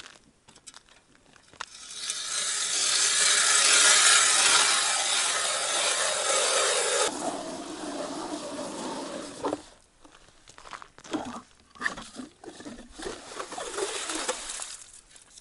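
Hand ice auger drilling through lake ice: the blades rasp and scrape steadily as the auger is cranked. About seven seconds in the sound turns abruptly duller, then breaks up into separate short scraping strokes.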